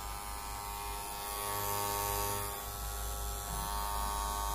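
Ubeator cordless hair clipper switched on and running: a steady, even buzz from its blade motor, a bit noisy.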